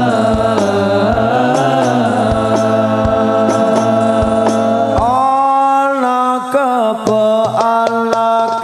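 A man's voice singing an Arabic sholawat through a PA system, holding long notes with wavering melodic turns, over an accompaniment with a steady drum beat.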